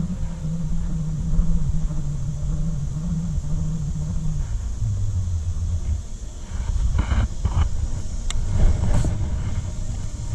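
A low engine drone with a steady hum that drops in pitch about halfway through, over a low rumble. A few short clicks and knocks come near the end.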